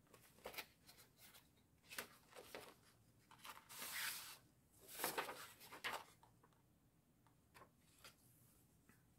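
Paper pages and card inserts of a handmade junk journal being turned and handled: faint, soft rustles and swishes, the longest about four seconds in and another about a second later.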